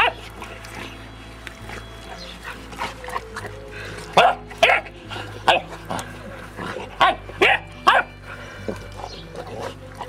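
Bullmastiff puppy barking in play: short, sharp barks in two quick runs of three, about four seconds and seven seconds in.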